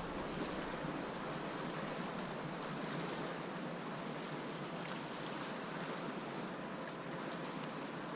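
Steady wash of the sea against the shore, an even hiss with no break, with a couple of faint ticks.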